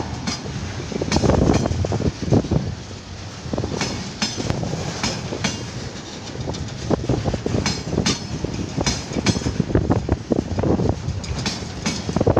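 A train rolling on the track: wheels clicking irregularly over rail joints over a low rumble.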